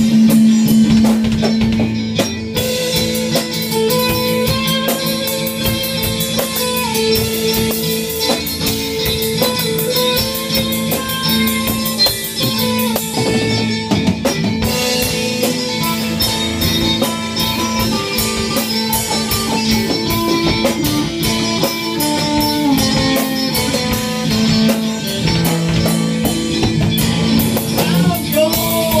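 A rock band playing live without vocals: electric guitar over a drum kit, with a steady, sustained bass note underneath.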